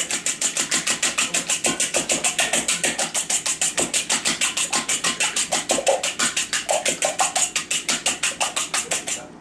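Eggs being beaten in a bowl for an egg wash: a fast, even clicking of the utensil against the bowl, about eight strokes a second, which stops abruptly near the end.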